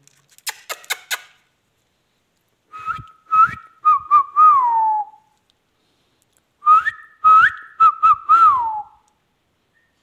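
Indian ringneck parrot giving two high, whistled phrases of short notes, each ending in a falling glide, about three and seven seconds in. A few sharp clicks come near the start.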